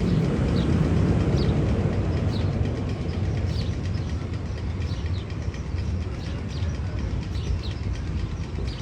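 Sound effect in the Magnum XL-200 roller coaster tunnel: a steady low train-like rumble with short high chirps repeating about once a second. The rumble is loudest at the start and eases slightly.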